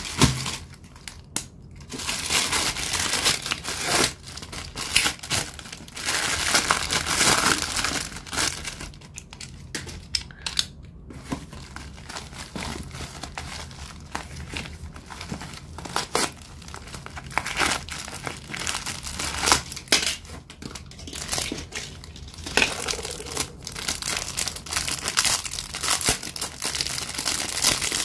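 Plastic courier mailer bags and plastic wrapping crinkling and tearing as they are handled and opened, in irregular bursts with short pauses.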